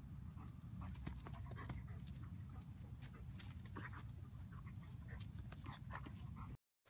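Faint scuffling and light taps of a German Shepherd and a rabbit playing on dirt and dry leaves, over a low steady hum. The sound cuts off abruptly near the end.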